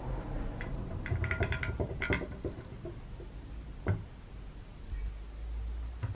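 An old rusty metal saw attachment being handled and set down on a wooden workbench: a cluster of light metallic clicks and rattles, then a single knock a few seconds later.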